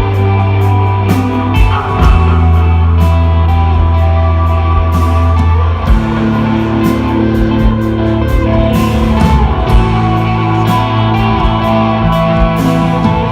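Live instrumental rock band playing: electric guitar lines over long held bass notes that change every few seconds, with drums and cymbal hits.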